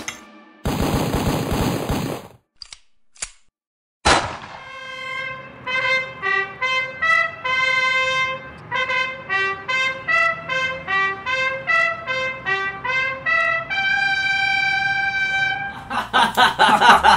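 Opening-title music: a trumpet plays a melody of short, separate notes, ending on a long held note. Before it comes a loud burst of noise lasting over a second, two faint clicks and a sharp hit about four seconds in.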